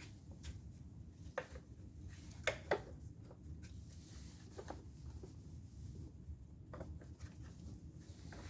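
Light, irregular clicks and taps of the electric chainsaw's plastic cover being pushed onto its housing, a pair of sharper knocks about two and a half seconds in.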